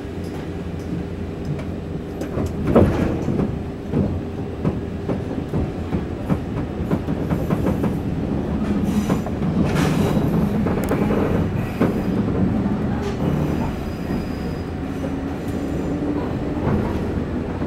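Inside the cabin of a 189-series electric train running on the rails, with the motors humming under the wheel noise. Sharp clicks from rail joints and the running gear break through, the loudest about three seconds in and about ten seconds in.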